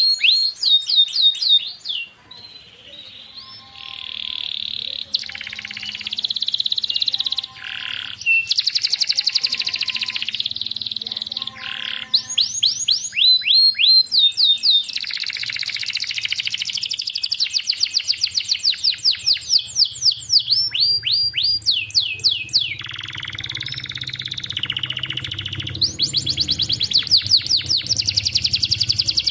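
Domestic canary singing: fast trills of repeated down-slurred whistles alternate with denser warbling passages, a few lower paired notes mixed in during the first half. It is canary masteran song, used as a model to get young or silent canaries singing.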